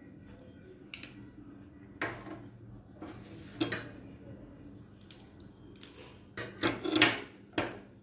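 Metal spoon clinking and scraping against a glass serving bowl: a few separate sharp clinks, then a quick run of them near the end.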